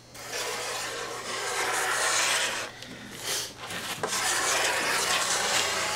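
Homemade plexiglass trowel scraping across a curly redwood slab, spreading a seal coat of epoxy. There are two long scraping strokes, with a short one between them about three seconds in.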